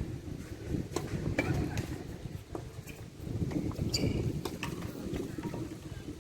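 Tennis play on court: a handful of sharp knocks, typical of ball strikes and bounces, come in two clusters about a second in and around four seconds in, over a steady low rumble.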